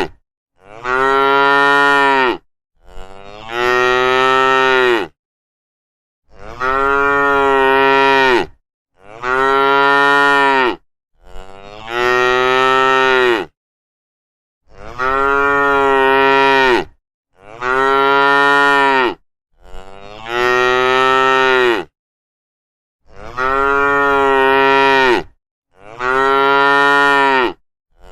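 Domestic cows mooing over and over: about ten long calls, each around two seconds, with short pauses between them.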